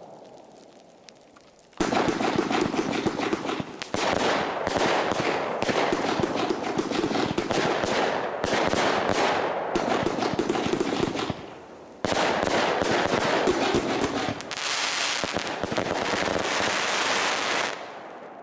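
Compound firework battery firing: dense rapid shots and crackling in one run of about nine seconds, a brief pause, then a second run of about six seconds that dies away near the end.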